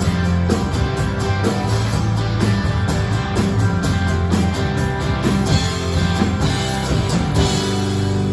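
Live rock band of electric guitar, acoustic guitar, electric bass and drum kit playing an instrumental passage over a steady drum beat. About seven and a half seconds in the drums stop and the band holds a final ringing chord as the song ends.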